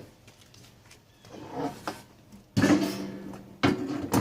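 Two loud clunks about a second apart as the metal grill smoker is handled and moved, each followed by a short metallic ring, after some faint handling noise.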